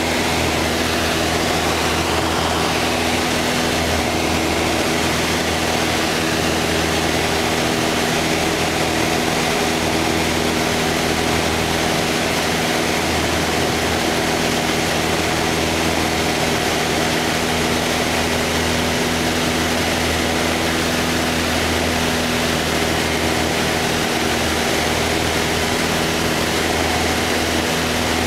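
Light aircraft's piston engine and propeller droning steadily in cruise, with rushing air, heard from inside the cockpit in flight.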